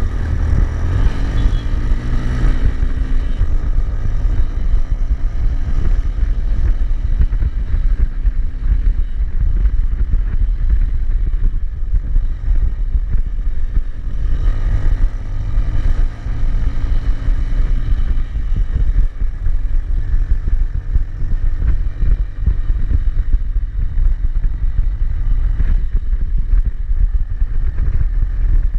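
Motorcycle engine running on the move, heard from the rider's own bike, under heavy wind rumble on the microphone. The engine pitch rises and falls near the start and again about halfway through as the rider works the throttle.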